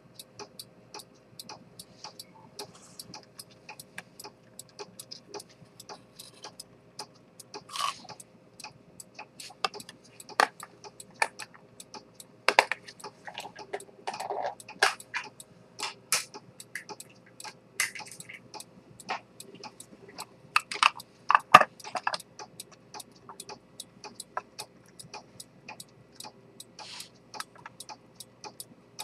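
Chronometer pocket watch with an Earnshaw spring-detent escapement ticking steadily, several light ticks a second. Louder irregular clicks and knocks from the handled gold case come in from about a quarter of the way through, the sharpest a little past two-thirds.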